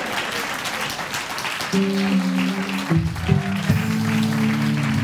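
Studio audience applauding, with a short instrumental music sting of a few low held notes coming in about two seconds in while the applause goes on.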